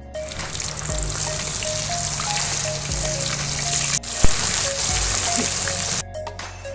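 Flour-coated catfish deep-frying in a large wok of hot oil: a loud, steady sizzle of bubbling oil that cuts off near the end.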